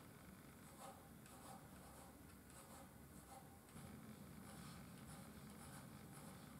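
A pencil scratching faintly on a cherry wood board in short, irregular strokes as a design is sketched out.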